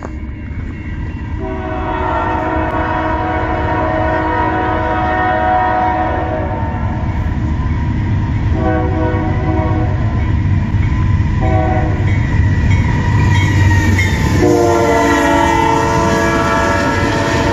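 Diesel freight locomotive's air horn sounding the grade-crossing signal, long, long, short, long, as the train closes on the crossing. Under it is the rising rumble of the engines and the wheels on the rails as the locomotives pass.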